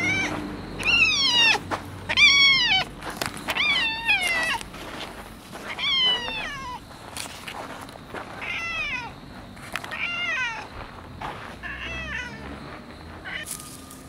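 Orange tabby cat meowing over and over, a string of noisy, drawn-out meows that each rise and then fall in pitch, about one every second or two. The loudest calls come in the first few seconds, and the later ones are fainter.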